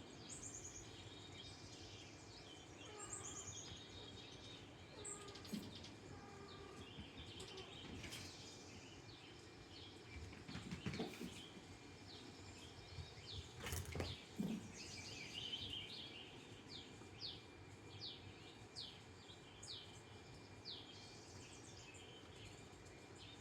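Faint chirping of small songbirds. In the second half a run of short, quick downward chirps repeats about twice a second. A few soft knocks fall in between.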